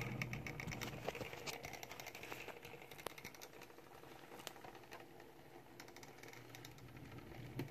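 HO scale brass steeple cab electric locomotive running slowly on model track, giving off faint, rapid, irregular clicking from its wheels and gearing, thinning out after the first few seconds.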